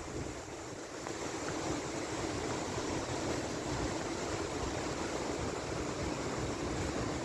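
Steady wash of Lake Michigan waves breaking on the beach, mixed with wind blowing on the microphone.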